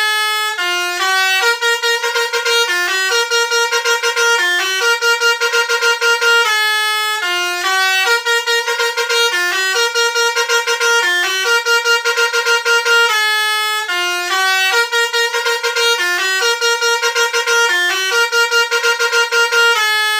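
Basuri telolet bus horn playing a melody of quick stepped notes in repeating phrases, with a fluttering pulse on the held low notes.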